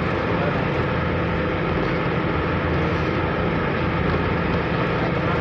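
Ferry engine running with a steady, even drone, over a rushing noise of wind and waves.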